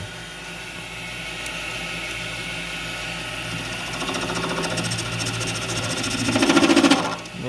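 Metal lathe running with a steady motor hum while a carbide tool faces the end of a long, far-overhanging bar; from about four seconds in the cut sets up a fast rhythmic chatter that grows loudest near the end and then stops abruptly. The chatter comes from a cut the machinist calls much too big on a bar sticking far out of the collet.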